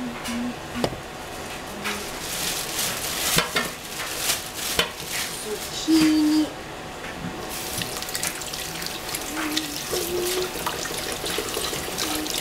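Water running from a kitchen tap into a stainless steel sink for several seconds, then stopping about halfway through. Light clicks and knocks follow as zucchini are handled and set down on a plastic cutting board.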